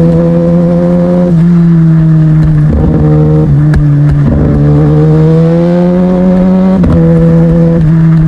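Kawasaki ZX-10R inline-four running through an Arrow Pro-Race exhaust under way, its note climbing slowly and dropping back several times, as at gear changes.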